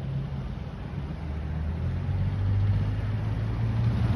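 Motorcycle engine running as the bike rides toward the listener, growing louder as it approaches.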